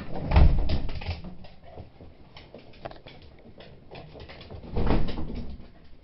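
Beagle puppies' claws clicking and pattering on a wooden floor as they scramble about, with a couple of louder thumps, about half a second in and again near five seconds.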